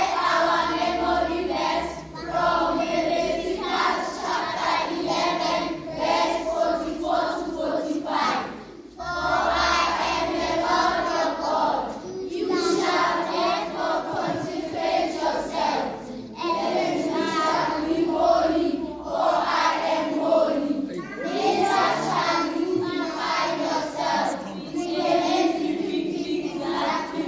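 A group of voices singing together in phrases of a couple of seconds each, with short breaks for breath: congregational or choir singing of a church chorus.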